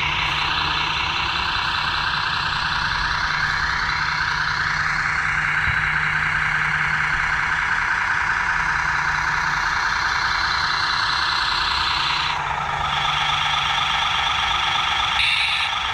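Radio-controlled model truck or construction machine running: a steady mechanical drone with whines that glide up and down in pitch, changing character about twelve seconds in.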